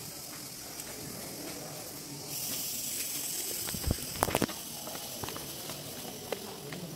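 A steady hiss that grows louder about two seconds in, with a quick cluster of sharp knocks about four seconds in.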